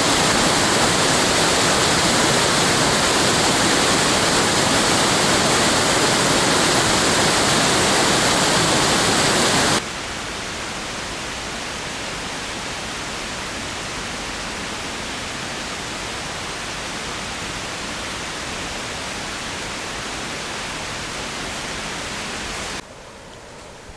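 Steady rush of a large waterfall. It drops suddenly in level about ten seconds in and again near the end.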